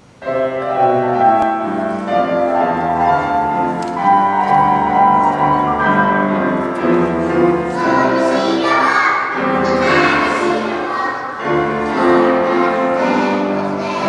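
A children's choir singing a Korean children's song in unison, starting suddenly just after the beginning.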